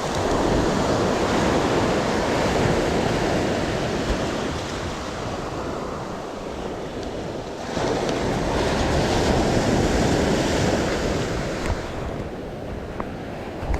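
Surf breaking and washing up a sandy beach: one wave surges in right away and another about eight seconds in, with wind rumbling on the microphone.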